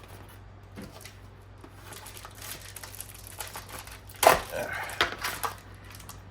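Plastic Beyblade packaging and parts handled by hand: soft rustling and light clicks, with one sharper plastic clack about four seconds in.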